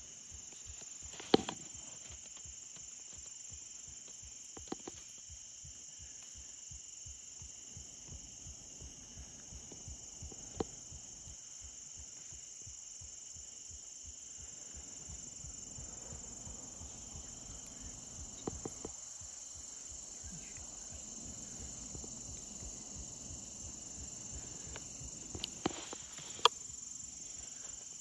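Steady high-pitched chorus of insects in late-summer woods, with a few sharp clicks scattered through it. The loudest clicks come about a second in and near the end.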